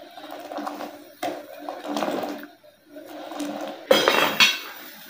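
A steel ladle stirring and scraping in a steel saucepan of boiling green tea. About four seconds in, a metal lid is set on the pan with a clank and a ringing, then shifted once more.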